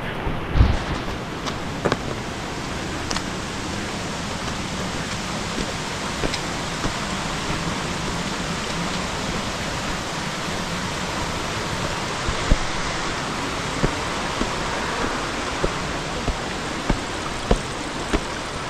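Steady rushing of flowing water, with a few light taps near the end that fit footsteps on stone steps.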